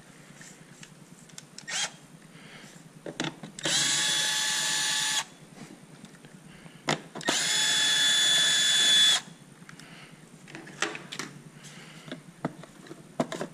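Compact cordless drill/driver run twice at a steady pitch, once for about a second and a half and then for about two seconds, backing out the fasteners of the cabin microfilter housing. Light clicks and knocks of handling parts in between.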